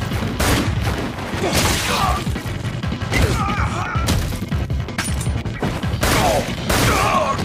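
Action-scene sound effects: a few sharp hits and swishes, the loudest pair near the end, over dramatic background music.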